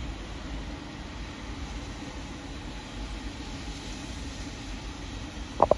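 Steam locomotive on a railtour train moving slowly through the station, heard across the tracks as a steady low rumble. Near the end comes one brief, sharp, louder sound.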